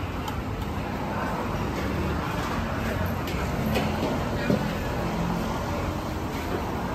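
Steady road traffic noise with a low hum, and a few light clinks of a metal ladle against pots and bowls.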